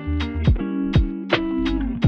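Background music: guitar over a steady beat of about two strokes a second, with bass.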